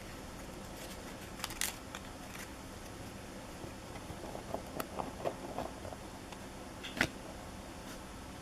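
Trading cards being handled: soft rustles and small clicks, with a sharper click about seven seconds in, over a steady faint hiss.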